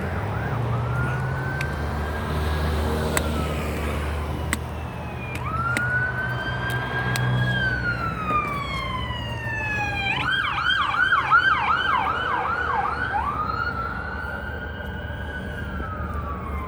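Electronic emergency-vehicle siren sounding a slow wail that rises, holds and falls, switching to a fast yelp about ten seconds in, then back to the wail, over the low rumble of a vehicle engine.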